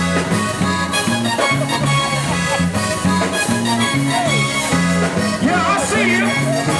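Live zydeco band playing an upbeat dance tune, with a steady bass line of repeated notes under it.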